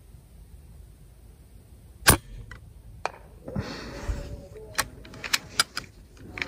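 A moderated PCP air rifle fires a single shot: one sharp crack about two seconds in. Handling noise and a run of sharp clicks follow.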